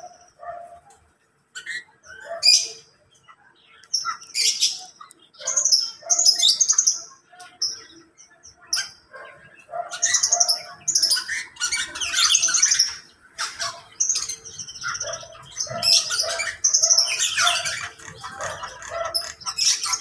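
Several cage birds chirping and calling over one another in short, high-pitched bursts, with lower repeated call notes mixed in. The calling grows busier through the second half.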